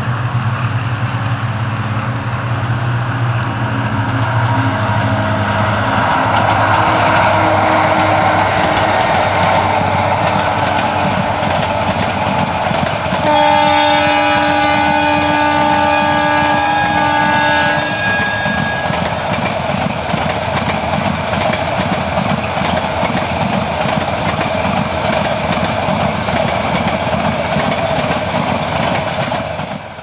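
Metre-gauge YAM-1 electric locomotive and its express train running past, with a low hum at first, then a steady rumble of wheels on rail. About 13 seconds in, the locomotive's distinctive two-tone horn sounds in one long blast of about four seconds.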